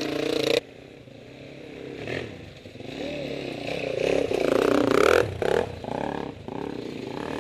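Background music cuts off about half a second in, then dirt bike engines rev up and down as the bikes ride past on a rough trail, loudest around two thirds of the way through as one passes close.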